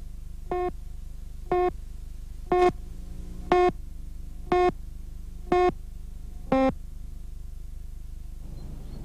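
Countdown beeps of a television slate leader: a short pitched tone once a second, seven times, the last one lower in pitch. A steady low hum runs underneath.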